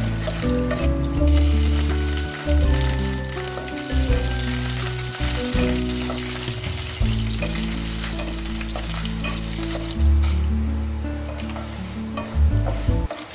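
Hot oil sizzling as a tempering of mustard seeds, chana dal, urad dal, curry leaves and dried red chillies fries in a nonstick pan, with a spatula stirring and scraping through it. Background music with sustained low notes runs underneath.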